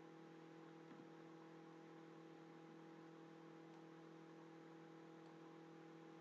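Near silence: a faint steady electrical hum over low hiss, with one faint tick about a second in.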